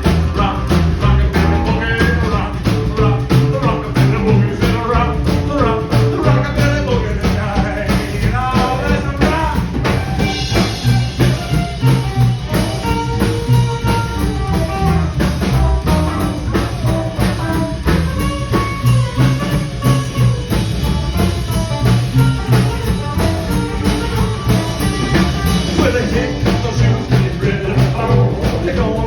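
Live rockabilly band playing a fast boogie: a steady driving drum beat, walking bass and electric guitar, with some singing.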